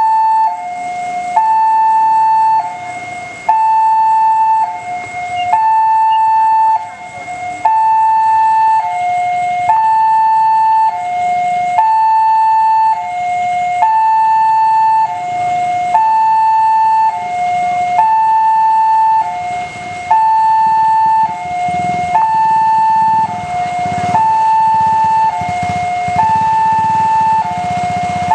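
Railway level crossing warning alarm sounding a steady two-tone hi-lo signal, alternating between a higher and a lower tone about once a second. It warns that the barrier is closing for an approaching train.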